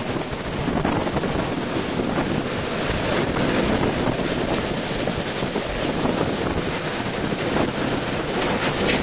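Hurricane-force eyewall wind, which the speaker estimates at about 130 mph, blowing through a building corridor. It is a steady, loud rush of wind with heavy buffeting on the microphone.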